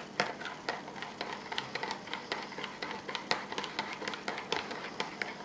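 Teaspoon clinking against a coffee cup in quick, irregular taps while sugar is stirred into a cappuccino.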